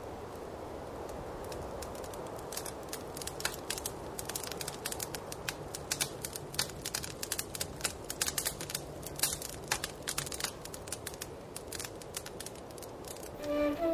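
Fire crackling, many sharp irregular pops over a steady low rumble of ambience. Near the end a flute begins to play.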